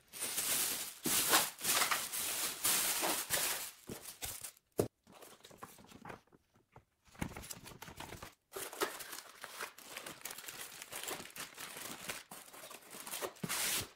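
Plastic packaging bag crinkling and rustling as it is pulled off a boxed printer. This is loudest for the first few seconds, followed by quieter rustling of paper sheets and a plastic accessory bag, with a single light knock about five seconds in.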